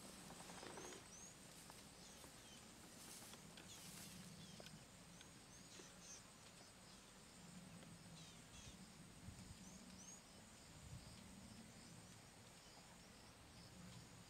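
Near silence: faint bush ambience, with a high two-note chirp repeating about every five seconds.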